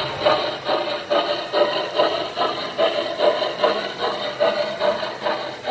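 Lionel O-gauge New York Central Commodore Vanderbilt Hudson model steam locomotive running with a steady rhythmic chuffing, about two to three chuffs a second, along with the rumble of the train on the track.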